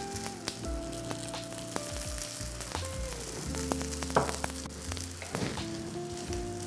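Ghee sizzling and spitting around a stuffed parotta frying on a hot tawa, with a brief louder clatter about four seconds in.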